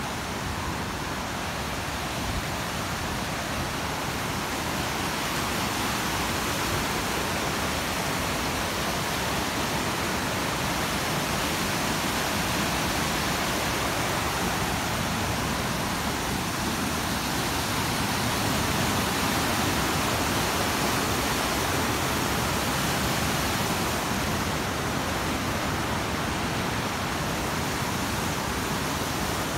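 Steady rush of fast-flowing water from a mountain canyon stream or falls, an even hiss-like roar without breaks, swelling slightly about two-thirds of the way through.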